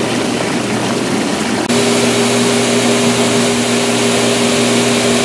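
Morgan Monaco hot tub running with its jet pumps and newly replaced air blower on, the water churning and bubbling; about two seconds in it changes to the steady mechanical drone and hum of the running spa equipment motors. The new blower is working as it should.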